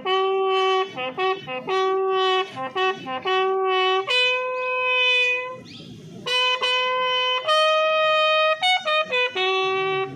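A single bugle sounding a call of the military funeral honours: slow, long held notes on three pitches, with quick short notes between them and a brief break about six seconds in.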